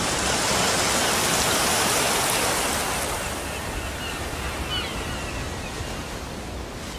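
Sea surf rushing, a wave surge that swells over the first couple of seconds and then slowly eases off.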